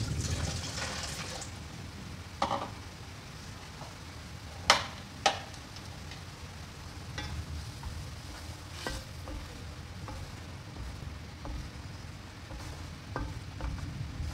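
Thick curry sauce bubbling and sizzling in an aluminium wok on a gas stove, stirred with a wooden spatula in the second half. A few sharp clicks stand out, the loudest two close together a little under halfway through.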